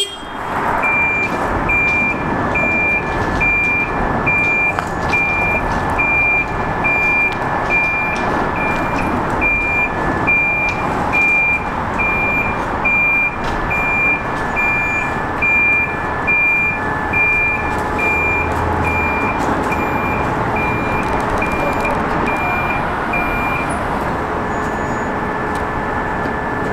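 Railcar mover's backup alarm beeping steadily, about twice a second, over its running engine. The beeping stops a few seconds before the end, while the engine keeps running.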